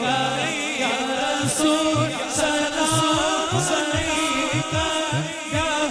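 Men singing a Urdu salam together into microphones, a lead voice with others joining, in long wavering notes. Under the voices runs a deep beat whose strokes drop in pitch, about two a second, starting about a second and a half in.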